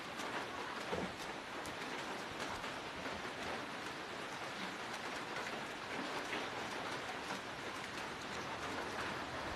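Steady rain, an even hiss with scattered faint ticks.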